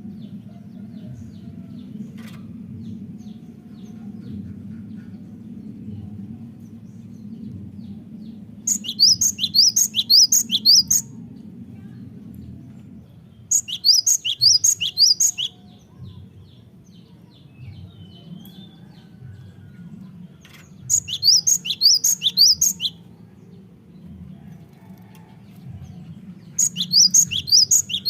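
Cinereous tit (gelatik batuk) singing in full song: four bursts of rapid, high, repeated notes, each about two seconds long and about six seconds apart, over a steady low hum.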